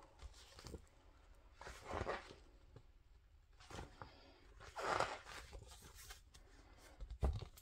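Faint handling noises: a few soft rustles spaced a second or two apart, and a short low knock near the end.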